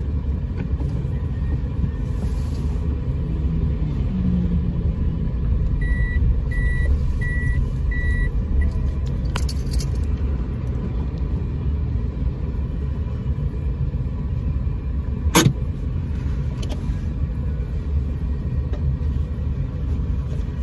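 Steady low rumble of a car heard from inside the cabin as the car moves slowly. About six seconds in come four short, evenly spaced high beeps, and a single sharp click follows about halfway through.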